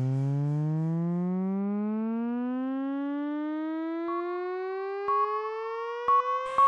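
An electronic rising tone in the soundtrack, like a siren winding up, gliding slowly and steadily upward while growing quieter. In the second half a thin steady beep-like tone comes in with a few sharp clicks.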